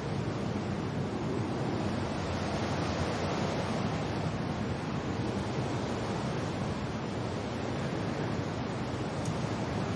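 Wind and rain: a steady, even rushing noise with no distinct events.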